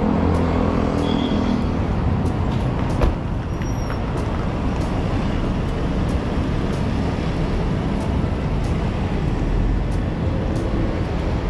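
Street traffic noise with a car engine idling close by in the first two seconds. A car door slams shut about three seconds in, and the traffic noise carries on steadily.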